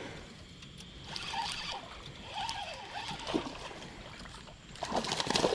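Water splashing and sloshing around a fishing kayak as a hooked bass is fought close to the boat, getting louder near the end.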